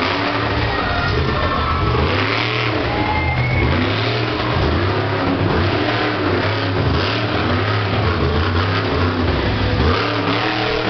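Strait Jacket monster truck's engine revving hard, rising and falling over and over as the truck is driven over crushed cars.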